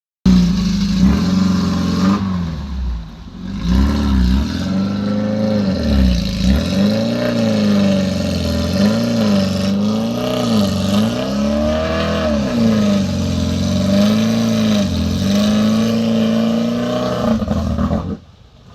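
Suzuki Jimny 4x4's engine driving off-road, its revs rising and falling over and over, about once a second, as the throttle is worked over rough ground. The sound cuts off near the end.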